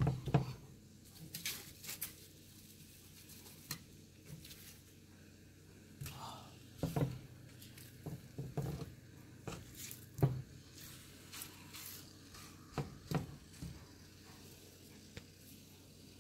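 Steaks frying in melted butter in a nonstick pan, a faint steady sizzle, with scattered light clicks and knocks.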